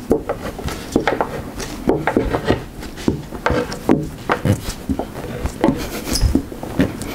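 Irregular knocks, taps and rubbing of hands and a small tool working on a plywood bench top.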